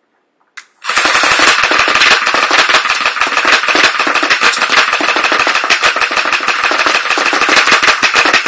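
Airsoft gun on a homemade servo-driven turret firing one long continuous full-auto burst, a rapid unbroken rattle of shots starting about a second in and lasting about seven and a half seconds, preceded by a single short click.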